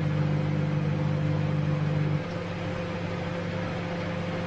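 A steady machine hum with a few fixed low tones. The strongest low tone cuts off abruptly about two seconds in, leaving a quieter hum.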